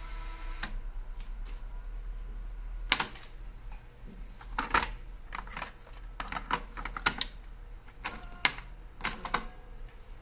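Gradiente C-404 cassette deck being operated: a sound made of steady tones stops about half a second in, then its transport keys and tape mechanism click and clunk about a dozen times in irregular groups.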